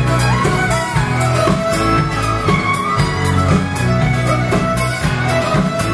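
A live folk band plays a tune: several fiddles together over acoustic guitar and drums.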